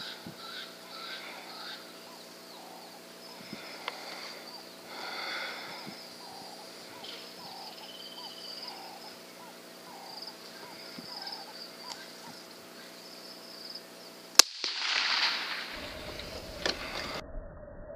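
A single .243 rifle shot about fourteen seconds in, by far the loudest sound, with a short echo trailing after it; the shot drops the puku. Before it, a steady rhythm of chirping birds and insects.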